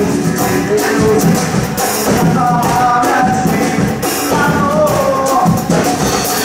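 Live band playing: a male voice singing into a microphone over a drum kit and percussion drums.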